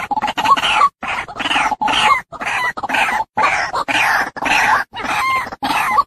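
White-breasted waterhen calling: harsh, clucking calls repeated quickly in an unbroken series, with short gaps between them.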